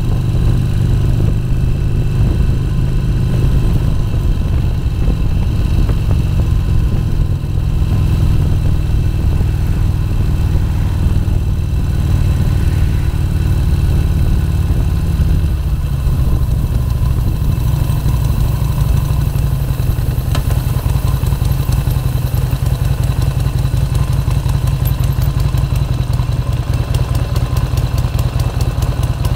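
Harley-Davidson XR1200's air-cooled 1200 cc V-twin engine running while the bike rides along and slows. It then settles to idle, with an even, rapid pulse over the last few seconds as the bike sits stopped.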